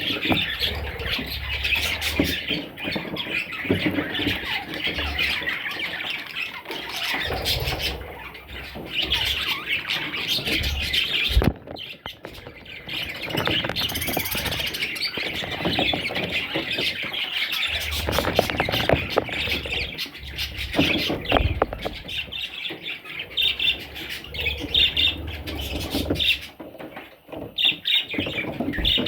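A flock of budgerigars chattering and squawking continuously, with a brief break about twelve seconds in and a low rumble coming and going underneath.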